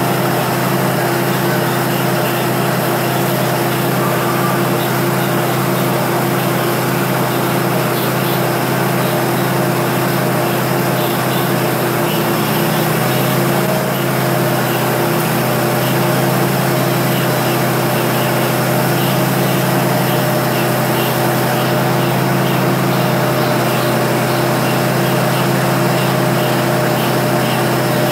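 Diesel engine of a train standing at the platform, idling steadily as a constant drone with a low hum and a few held tones.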